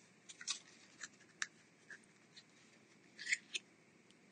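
Small cosmetic products and their packaging being handled: a string of faint, short clicks and rustles, the loudest pair a little after three seconds in.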